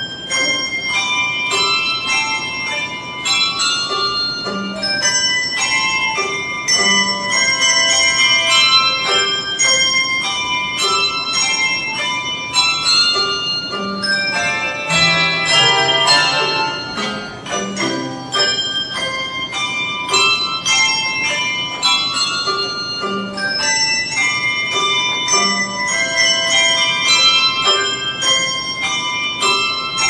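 Handbell choir playing a piece: many handbells struck in quick succession, melody and chords ringing on over one another, with occasional deeper bass bells.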